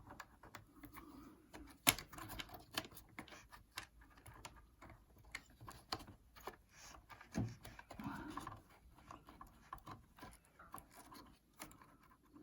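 Faint, irregular clicks and taps of small tools and plastic connectors being handled during work on an opened iMac's logic board, with the sharpest click about two seconds in.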